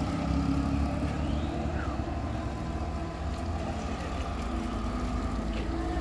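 A motor vehicle engine running steadily with a low hum.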